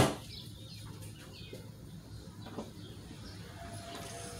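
A car door shutting with one sharp thump, then a quiet background with faint bird chirps. A faint steady tone comes in near the end.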